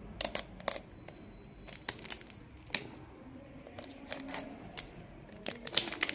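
Plastic shrink-wrap on a small cardboard box crackling as fingernails pick at it, looking for an edge to tear: a string of separate short, sharp crackles and clicks.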